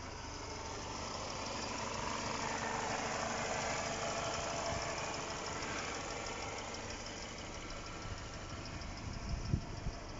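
Mercedes-Benz W203's M111 four-cylinder petrol engine idling with a fast, even ticking from its hydraulic valve lifters: a lifter knock most often caused by a clogged oil filter.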